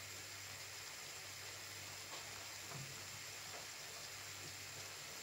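Chopped kokoreç and tomatoes sizzling faintly and steadily in a frying pan, with a low steady hum beneath.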